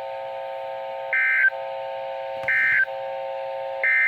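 Emergency Alert System end-of-message data signal: three short, identical bursts of warbling high data tones, about 1.4 s apart, over a steady low tone. The three bursts mark the end of the severe thunderstorm warning broadcast.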